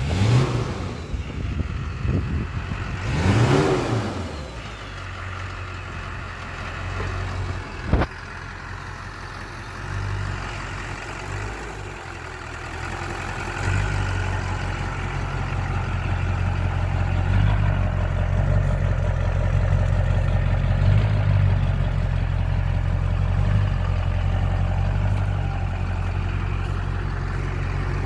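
LB7 Duramax 6.6-litre V8 turbodiesel running, now starting after its loose crankshaft reluctor wheel was fixed. A brief rise and fall in engine pitch early on and a sharp click, then from about halfway a steady, louder run.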